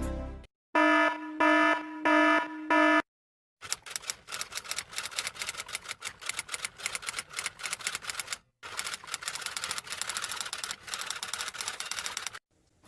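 Four short beeping tones of the same pitch, then a long run of rapid typing clicks with a brief pause about halfway through.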